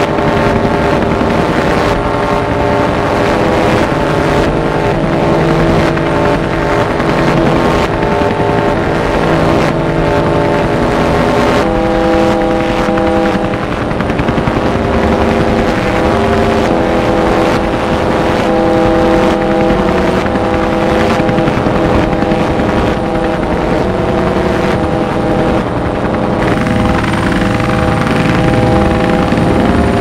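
A loud, dense blend of layered noises: a steady wash of noise with several sustained droning tones over it, the mix of tones shifting about twelve seconds in.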